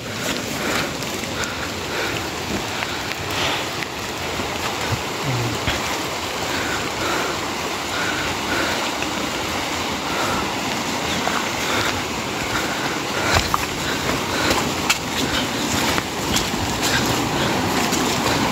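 Heavy rain falling steadily, a continuous hiss of water, with scattered sharp taps of drops landing close by.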